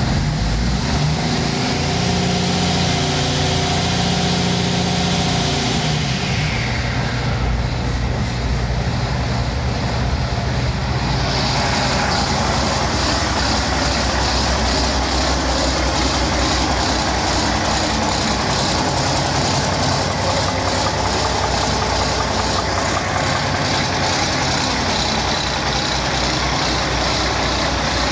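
2005 Cummins ISL inline-six turbodiesel engine running steadily on a test stand. About ten seconds in its sound turns brighter, with more hiss.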